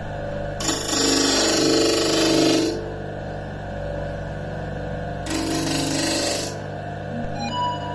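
Disc sander motor running steadily, with a piece of wood pressed against the spinning abrasive disc twice: a loud rough grinding for about two seconds, then again for about a second.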